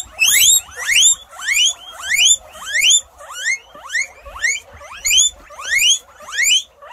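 Guinea pig wheeking: a run of loud squeals, each rising in pitch, about two a second.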